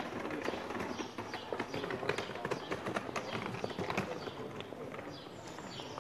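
Outdoor street sound with many irregular sharp clicks and knocks, and faint voices.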